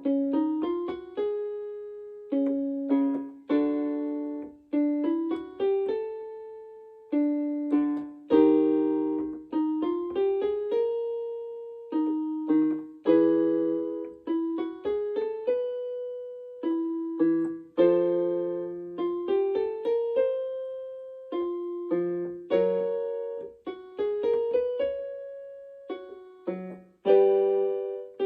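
Piano accompaniment for a vocal warm-up: a chord, then a short run of notes stepping up five steps of the scale, repeated several times, each repeat a step higher in pitch.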